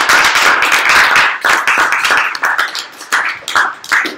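A small group applauding, dense clapping that thins out to a few scattered claps over the last couple of seconds.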